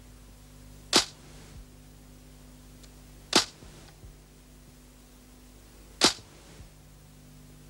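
Three sharp, very short clacks about two and a half seconds apart, a title-sequence sound effect struck as each portrait comes up, over a faint steady hum.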